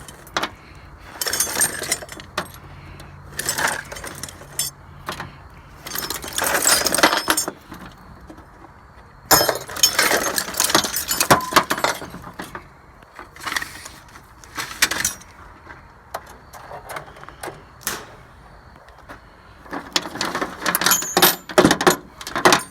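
Pieces of scrap metal clattering and clinking as they are handled and tossed into a pile or barrel, in several bursts of sharp, ringing impacts with short pauses between.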